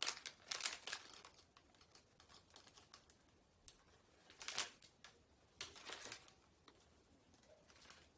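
Fingernails picking and scratching at the edge of a clear plastic face shield, working to lift the protective film off the lens: short, faint bursts of clicking and crackling, strongest at the start and again about four and a half seconds in.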